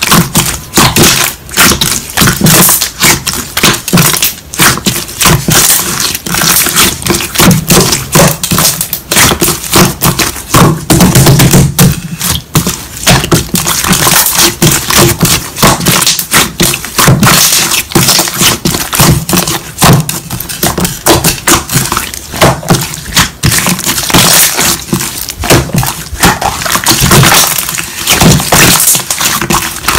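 Slime being squished and pressed by hand, a dense, continuous run of crackling clicks and pops.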